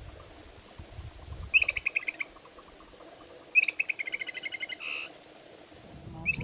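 A songbird singing: two quick phrases of rapid, trilled notes about two seconds apart, the second followed by one short note, over faint low background noise.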